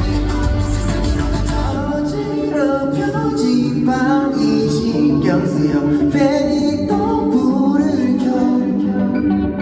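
A pop song performed live through concert speakers: a singer over band backing. The bass and drums drop out about two seconds in, leaving the voice over steady held chords.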